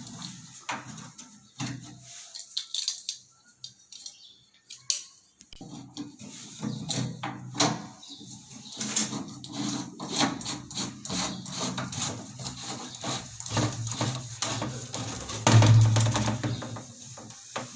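Plastic flush-tank fittings being handled and pushed together by hand: irregular clicks, knocks and rubbing, busiest in the second half and loudest shortly before the end.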